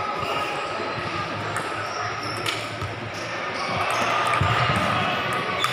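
Table tennis rally: the celluloid ball is struck by bats and bounces on the table, giving a few sharp clicks at irregular intervals over the background noise of the hall.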